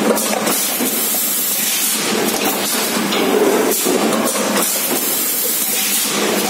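Hydraulic metal-profile forming machine running: a loud, steady hiss-like machine noise with a low hum under it.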